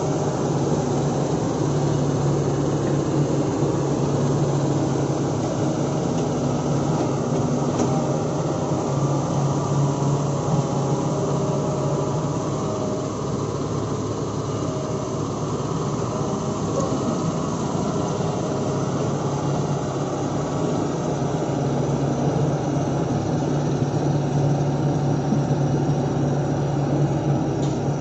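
Heavy diesel engine of earthmoving machinery running steadily at a constant speed, with a strong low hum that eases a little midway and then returns.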